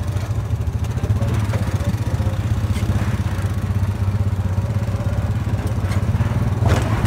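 Side-by-side UTV engine running at a steady low speed, heard from the driver's seat while crawling over a rutted dirt trail. A few short knocks and rattles come from the vehicle over the bumps.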